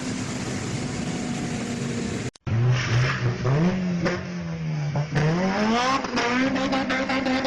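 Honda K20 inline-four engine: a steady drone, then after a cut about two seconds in, the engine revving hard, its pitch climbing, easing off and climbing again, with sharp crackles over the last couple of seconds.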